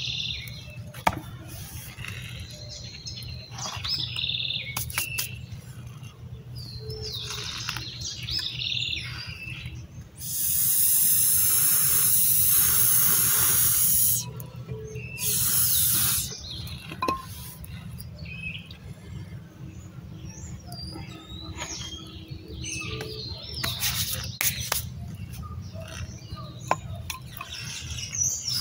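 Small birds chirping on and off over a steady low hum. A loud rushing hiss cuts in for about four seconds near the middle and again for about a second shortly after.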